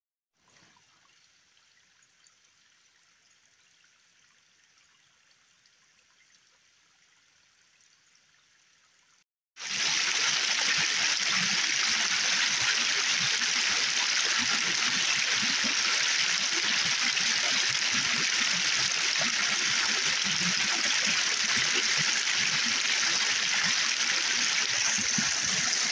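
Shallow snowmelt stream running and splashing over rocks, a loud, steady rush of water that starts abruptly about nine and a half seconds in. Before that there is only a faint hiss.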